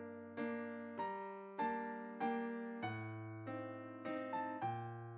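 Background music: a soft electric piano playing slow chords and melody notes, each struck and fading away, about two a second.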